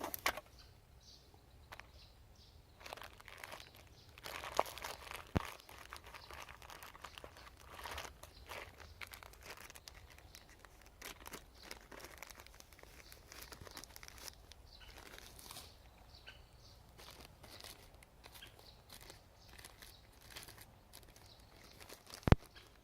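Rustling and crinkling of things being handled, with many small clicks and two sharp knocks, one about five seconds in and a louder one near the end.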